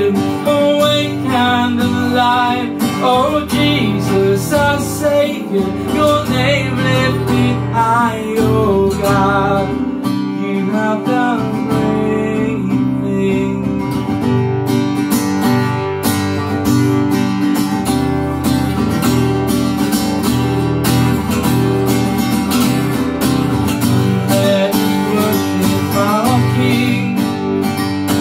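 Acoustic guitar strummed steadily, with a voice singing over it in the first part and again near the end.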